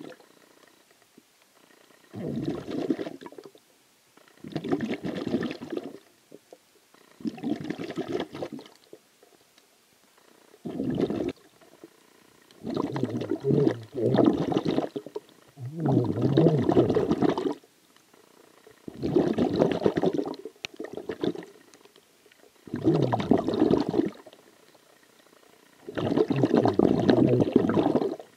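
A swimmer's exhaled breath bubbling underwater: regular gurgling bursts, one every two to three seconds, with short quiet gaps between.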